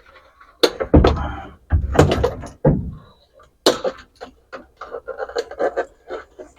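A string of sharp knocks and thunks, then a run of quicker light clicks and taps: parts being worked loose and handled during disassembly in a truck's dash area.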